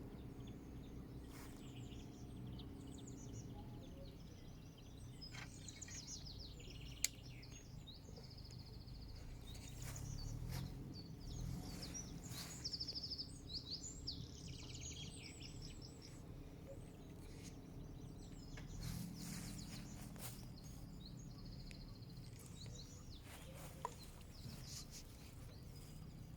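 Several small birds chirping and trilling, short high calls one after another, over a low steady background rumble. A sharp click sounds about a quarter of the way in, and a fainter one near the end.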